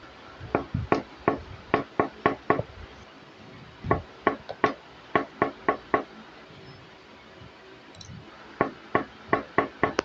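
Sharp, evenly spaced knocks, about four a second, in three runs of seven or eight, with short pauses between the runs.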